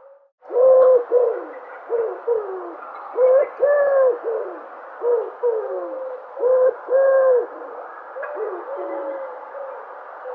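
Dove cooing: a series of low, hollow coos, many sliding down in pitch at their ends, with the loudest around the middle and softer ones near the end, over a steady background hiss.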